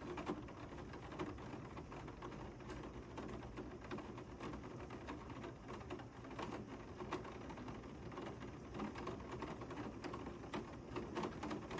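Heavy rain falling steadily, with many small irregular ticks of drops striking close by.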